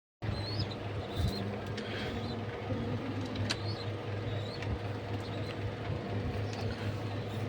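Pigeons in a loft: short, high, wavering chirps and squeaks every second or so, with a few light clicks, over a steady low hum.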